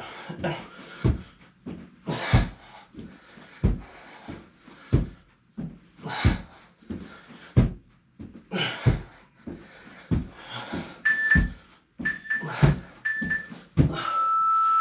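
Feet landing on the floor in a steady rhythm of about one thud every 1.3 seconds, with heavy panting breaths, during double mountain climbers with thrusters. Near the end an interval timer sounds three short beeps and then one longer, lower beep, the countdown that ends the Tabata work interval.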